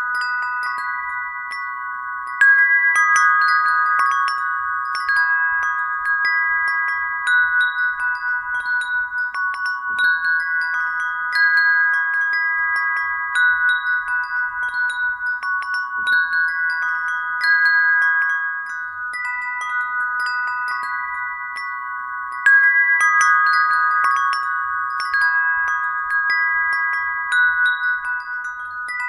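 Brass wind bell, a string of small bell-shaped brass cups, ringing as it sways. Fresh strikes come every second or so and layer several long, overlapping tones.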